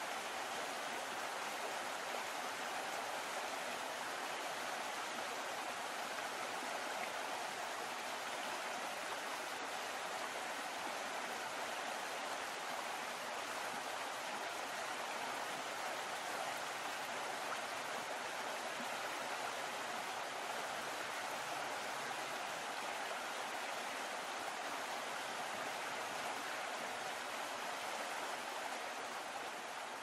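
Steady wash of water churned up and rushing along behind a moving boat, an even, unbroken swish.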